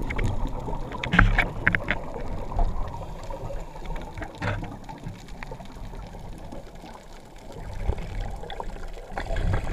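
Muffled underwater rumble of water moving around a camera in a waterproof housing, with scattered short clicks and knocks and a couple of swells near the end.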